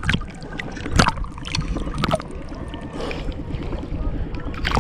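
Seawater sloshing and lapping against an action camera held half-submerged at the surface, with a muffled low rumble and sharp splashes at the start, about a second in and about two seconds in.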